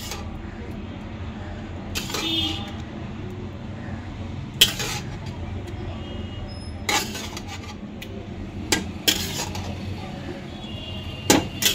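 Metal spoon clinking against a serving dish while a thick curry is stirred and served, about half a dozen sharp clinks spread out over a steady low background hum.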